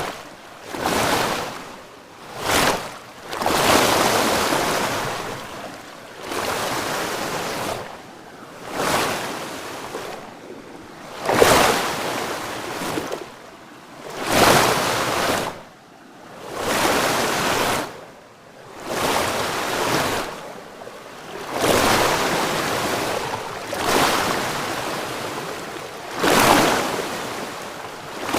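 Waves washing in one after another: a rushing surge every two to three seconds that swells and then trails away.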